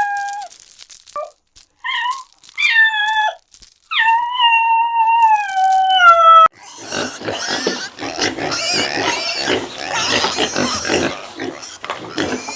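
Farm animals calling: a few short, pitched cries and one long cry that falls in pitch, then from about six and a half seconds in a dense, noisy jumble of calls.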